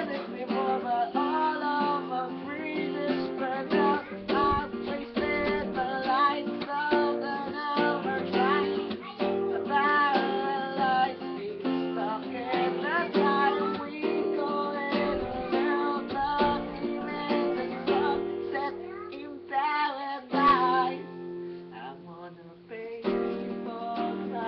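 Acoustic guitar with a capo, strummed in a steady rhythm of chords, dropping briefly in loudness a little before the end.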